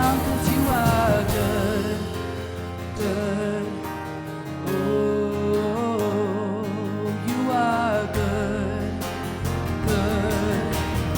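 Live worship music from a church band, with a sung melody over guitar and sustained accompaniment.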